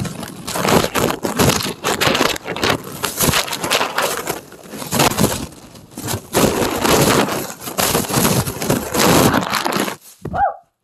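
A bag being shaken and crumpled with the recording phone inside it: loud, irregular crinkling and rustling right against the microphone. It dies away about ten seconds in.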